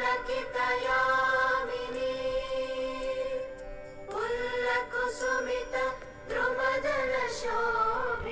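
Phone ringtone of choral singing: long held, chant-like notes with slow glides in pitch, pausing briefly twice.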